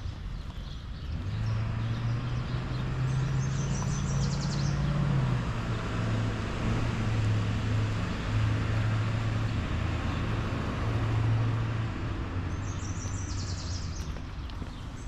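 A motor vehicle's engine hum rises about a second in, holds steady while dropping slightly in pitch, and fades near the end as it passes. A bird chirps twice over it.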